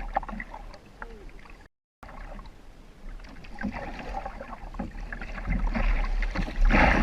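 A boat on the water: motor and water noise over a steady low rumble. It cuts out completely for a moment just before two seconds in, then grows louder toward the end.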